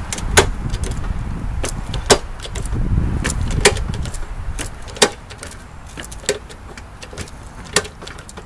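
Long-handled structural rivet gun being worked stroke after stroke as it pulls a rivet, with a sharp metallic click about every second and a half.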